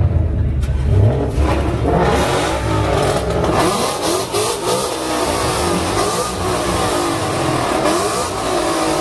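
Several Ford Mustangs revving their engines at the same time, many overlapping revs rising and falling. A low engine rumble leads in before the revving starts about a second in.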